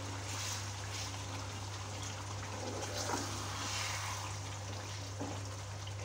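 Wooden spatula stirring yogurt into a simmering chicken curry in a nonstick frying pan: a wet sizzle with swishes as the spatula moves, over a low steady hum.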